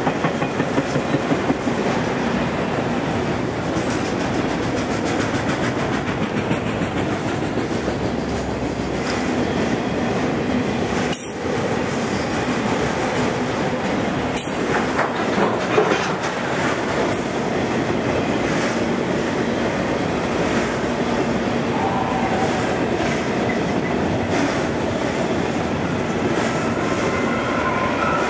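Freight train of autorack cars rolling past at steady speed, a continuous rumble of wheels on rail with clacking over the rail joints. A faint wheel squeal comes in during the last few seconds.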